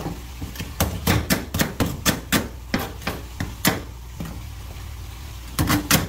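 Kitchen knife knocking and scraping barnacles off a wild scallop's shell: a run of sharp, irregular clicks, about two or three a second, with a short lull past the middle before the strikes start again near the end.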